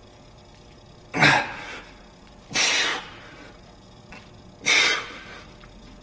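A man's forceful breaths out, three sharp exhales about one and a half seconds apart, from the strain of lifting dumbbells through repetitions.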